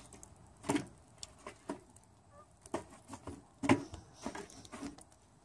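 Scattered, irregular clicks and knocks, about a dozen, the loudest a little past the middle.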